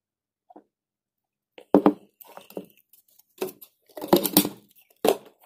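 A series of loud crinkling, crunching handling noises close to the microphone, starting about a second and a half in: five or so short bursts.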